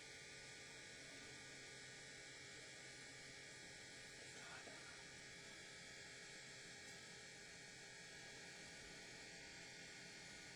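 Near silence: a faint, steady hum and hiss.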